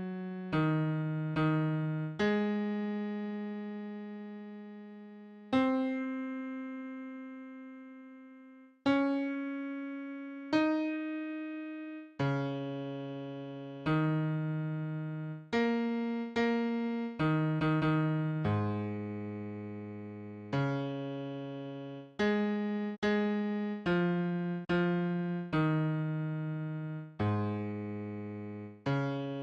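Electric piano playing a slow worship-song accompaniment: chords struck one after another and left to fade, some held for several seconds, with a low bass line moving underneath. Around the middle the chords come quicker, in a steadier rhythm.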